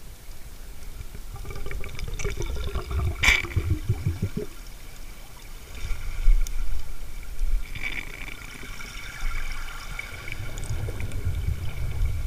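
Underwater water movement and bubbling as a diving camera moves, with a low rumble and a single sharp click about three seconds in.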